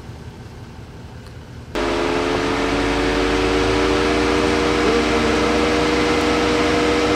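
Loud, steady mechanical vehicle noise: an even hiss with several steady hums and a low rumble, switching on suddenly about two seconds in and holding steady after that.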